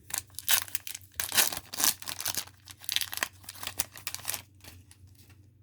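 Foil trading-card pack wrapper being torn open and crinkled by hand, a dense run of crackles that dies down near the end.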